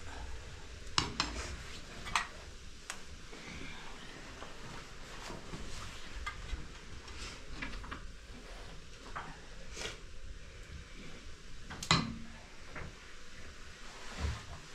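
Kitchenware being handled: scattered clinks and knocks, a handful of separate strikes with the loudest about twelve seconds in.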